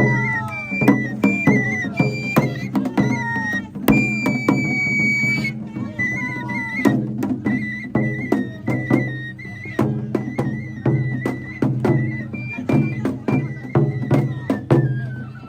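Japanese festival music: a high flute holds and steps through a melody over repeated drum and percussion strikes, with a steady low hum underneath.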